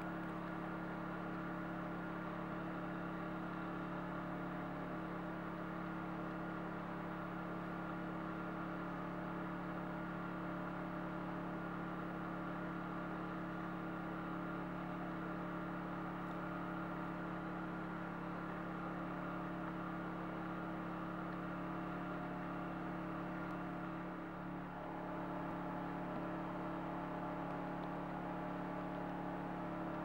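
A steady mechanical hum made of several held tones, which shift slightly about five seconds in and again near the end.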